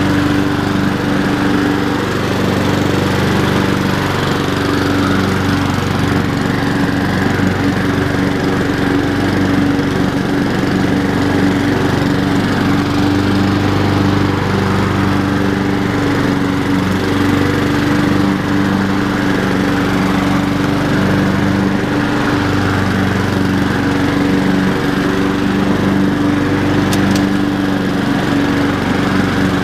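Honda HRR216 walk-behind lawnmower's single-cylinder four-stroke engine running steadily at a constant speed while cutting grass.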